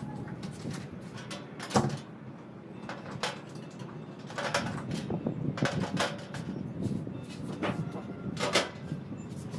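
Sheet-metal clanks and scrapes from the steel parts of a square fire pit being fitted into place. There is a sharp knock about two seconds in, a run of clatter in the middle as the mesh spark screen is set into the bowl, and another knock near the end as the flat metal lid is brought over it.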